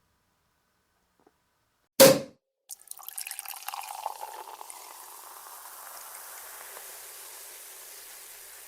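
A champagne cork pops about two seconds in. Champagne is then poured and fizzes in a glass, a crackling hiss that slowly settles.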